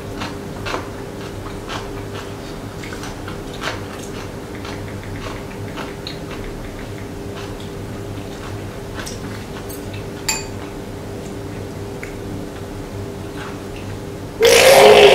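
Quiet table sounds: scattered light clicks of chopsticks and dishes over a steady low hum. Near the end, a sudden loud vocal burst from a person at the table, a splutter that sends spit flying.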